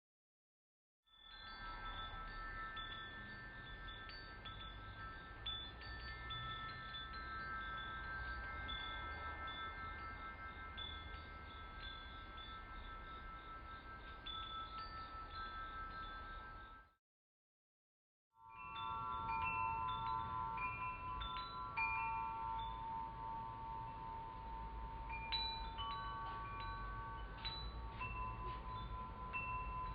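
Swiss Decor wind chimes, first the 'Crystal Venus' and then, after a short break, the 'Crystal Terra', their rods struck again and again and ringing on. The second chime rings at lower pitches than the first.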